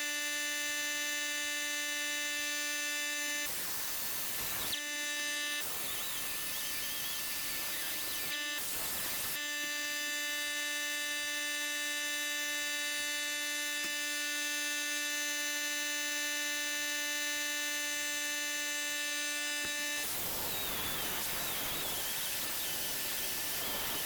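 High-speed rotary tool whining steadily, with stretches of rough abrasive noise, as it scrubs stuck old gasket material off an engine's water pump mounting face.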